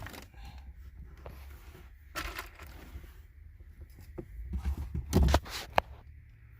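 Hand tools working on car stereo wiring while wires are joined with crimp connectors. Scattered clicks and short scraping, rustling noises, with the loudest burst about five seconds in.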